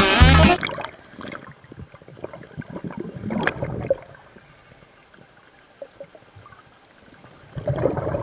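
Music cuts off half a second in, leaving water splashing and gurgling around a camera as it goes under the surface during a scuba dive, then muffled underwater bubbling. A louder rush of bubbling comes near the end.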